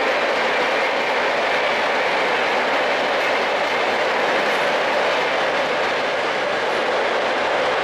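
Rajdhani Express passenger coaches running over a railway bridge at more than 115 km/h: a loud, steady rush of wheels on rail that holds level throughout.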